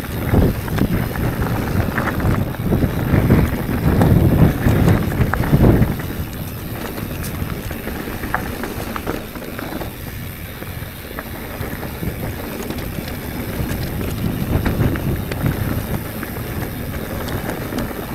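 Wind rushing over the microphone of a mountain bike ride, with small clicks and rattles from the bike on the trail. The wind is heaviest for the first six seconds, then eases to a lighter, steady rush.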